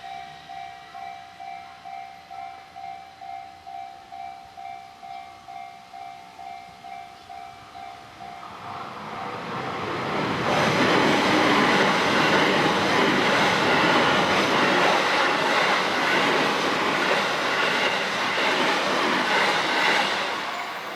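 Japanese level-crossing warning bell ringing about twice a second. A train then passes through the crossing, its wheel-and-rail noise building from about eight seconds in and drowning the bell. The noise fades near the end, when the bell is heard again.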